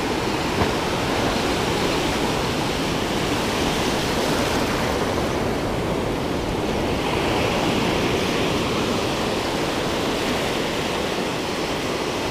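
Ocean surf breaking and washing in over shallow sand: a steady rushing of water.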